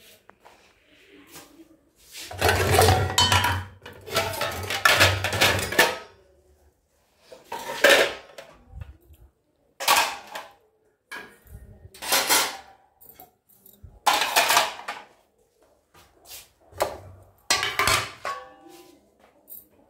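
Stainless steel plates and dishes being set into a metal wire dish rack, clattering and clinking against the steel. The clatter comes as a dense run a couple of seconds in, then as separate knocks about every two seconds.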